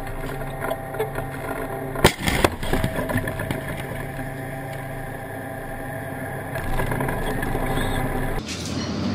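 Tank engine running steadily, with one loud sharp blast from the tank's main gun firing about two seconds in.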